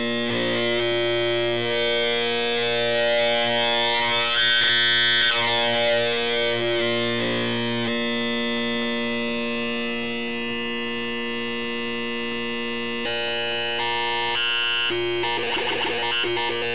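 Buzzy square-like synth tone from a DIY CMOS 4093 oscillator run through a simple op-amp voltage-controlled filter, played over a loudspeaker. The pitch holds, while its overtones shift as the filter changes: a swirling sweep about four seconds in, then stepped changes in tone over the last few seconds.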